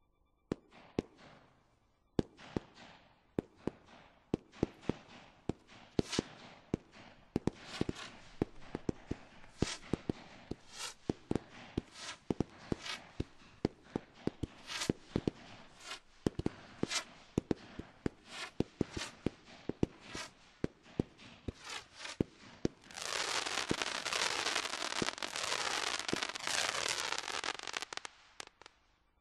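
Low-noise multi-shot consumer firework cakes firing a long string of soft shots, roughly two a second. Near the end this gives way to a dense crackling fizz lasting about five seconds.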